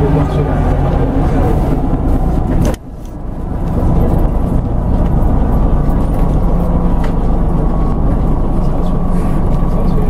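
Scania OmniDekka double-decker bus running, heard from inside the lower deck: a steady low engine and road drone. About three seconds in the sound drops away suddenly and builds back up over a second.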